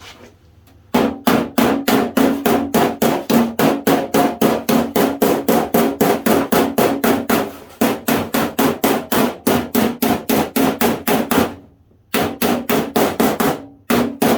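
Rapid hammer blows on the steel of a car door panel, about five a second, each with a short metallic ring; they break off briefly near the end, then a few more follow.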